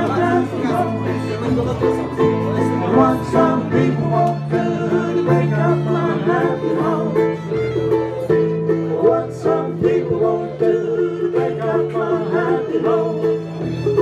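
Live acoustic country band playing: fiddle over strummed acoustic guitar, with a low line that moves from note to note about every second.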